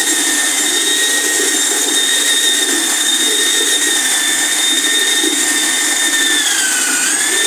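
Electric drill with a mixing paddle running steadily, stirring liquid Sika 1 waterproofing mix in a bucket. Its motor whine sags in pitch briefly near the end, then comes back up to speed.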